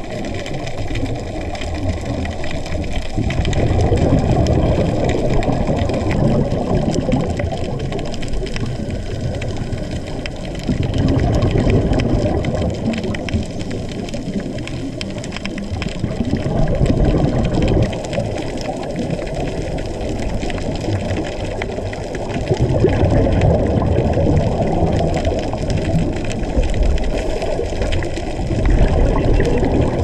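Scuba diver's exhaled bubbles from the regulator heard underwater, swelling in surges about every six to seven seconds over a steady underwater wash.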